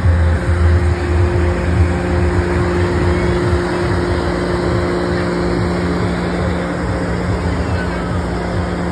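A steady, even motor hum with a low rumble underneath, unchanging in pitch.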